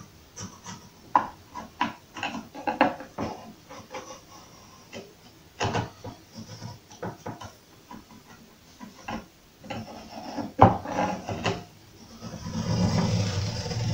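Joiner's scribers drawn down the edge of a painted wooden cupboard frame against a textured papered wall, the point scratching a scribe line. The result is a run of short, irregular scrapes and scratches, with a longer rustle near the end.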